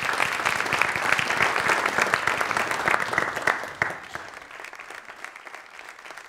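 Audience applauding: dense clapping that thins and fades out about four seconds in.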